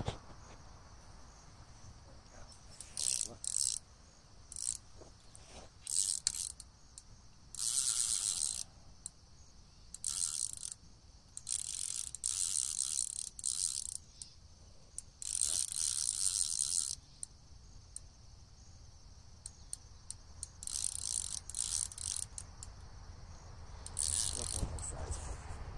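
Fishing reel drag clicking out in irregular bursts, some brief and some over a second long, as a hooked carp pulls line against a loosely set drag.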